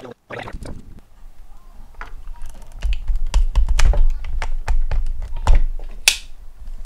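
Irregular small clicks and taps of parts being handled and fitted on a Printrbot 3D printer's carriage, with heavier bumps in the middle and a short hiss near the end.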